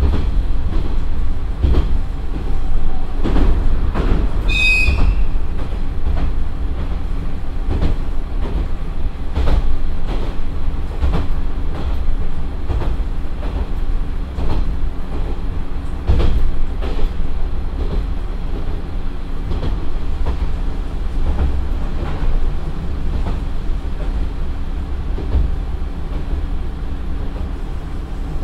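Inside the Nagara 3 series diesel railcar, slowing from about 55 km/h, with a steady low rumble and the wheels clacking irregularly over the joints of short jointed rail. A brief high squeal about five seconds in.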